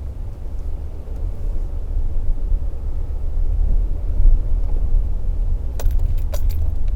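Toyota Tacoma pickup under way, a steady low engine and road rumble heard from inside the cab, slowly building after about two seconds. A few sharp clicks about six seconds in.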